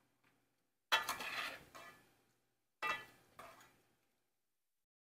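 Metal pot and kitchen utensils clattering in two sudden bursts about two seconds apart, each made of several knocks that ring briefly.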